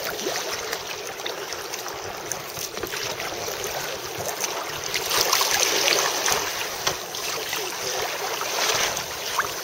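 Choppy water splashing and rushing against the hull of a small moving boat, a steady hiss of spray that swells a little around the middle.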